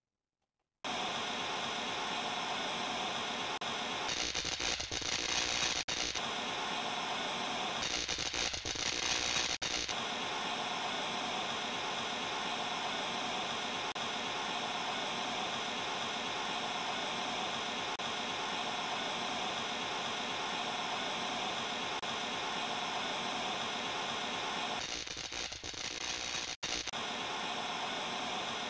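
Television static: a steady, even hiss that starts about a second in and shifts in tone a few times.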